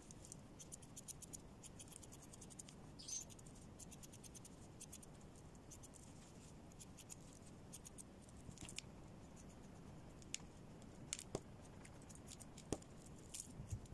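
Grooming scissors snipping through a dog's fur: faint, sharp little clicks in quick runs, with pauses between them.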